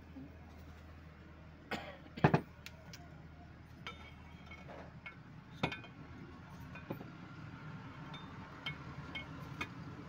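Steel parts of a hydraulic cylinder clinking and knocking together as it is assembled by hand. There are scattered sharp metallic knocks, the loudest two about two seconds in and another just before six seconds, with lighter clinks between.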